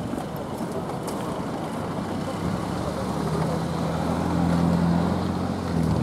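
Road traffic: cars going by. One vehicle's engine hum swells from about halfway, is loudest near the end, then drops off.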